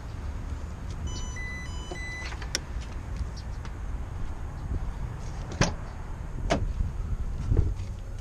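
A few short electronic beeps about a second in, then four sharp clicks and knocks, the last a heavier thump, over a steady low hum.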